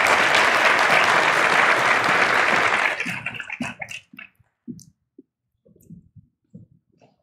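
Audience applauding, which dies away about three seconds in into a few scattered claps.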